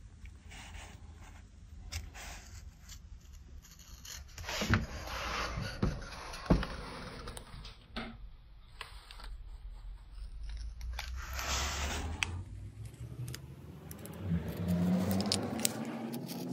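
Intermittent scraping with scattered light knocks and clicks of hand work. Near the end a steady hum starts, rising slightly in pitch.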